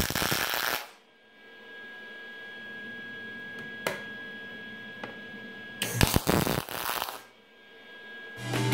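Aluminum MIG welding with a Magnum 100SG spool gun: two short bursts of crackling arc, one at the very start lasting under a second and another about six seconds in lasting about a second. A faint steady hum fills the gap between them.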